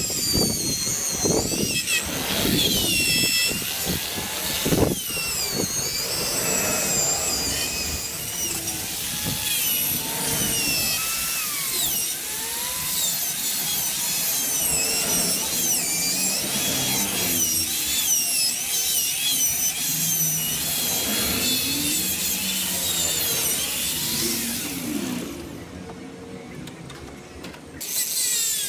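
High-speed power tool whining, its pitch sliding up and down as the load changes; the sound drops quieter near the end.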